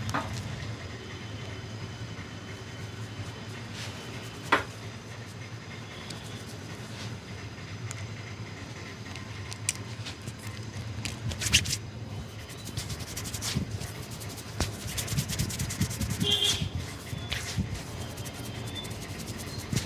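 A barber's hands rubbing a customer's head and skin during a head massage, with scattered sharp taps or slaps, the loudest a little past the middle, over a steady low hum.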